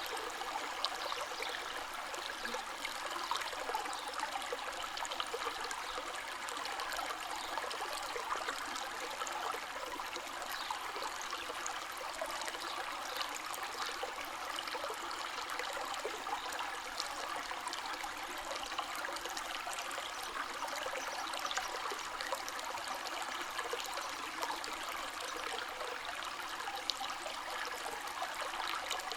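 A river or stream flowing steadily over rocks: an even rushing and babbling of water with small splashes throughout.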